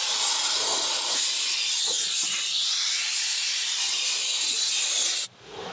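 Compressed-air blow gun hissing steadily as it blows dust off a car dashboard, stopping abruptly near the end.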